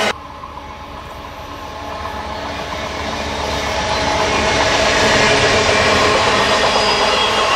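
Double-deck Amtrak passenger cars rolling past on the rails, their rumble and wheel clatter building steadily louder after a sudden drop in level just at the start.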